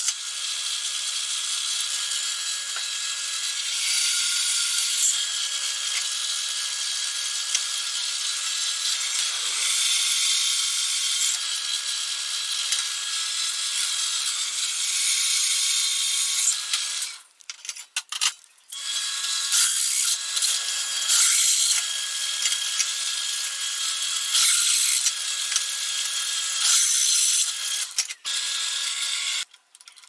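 Bench drill press running with a steady hum while its bit cuts 10 and 12 mm holes through a steel plate, a harsh high scraping. The drilling breaks off for about a second and a half a little past halfway, then comes back in shorter runs.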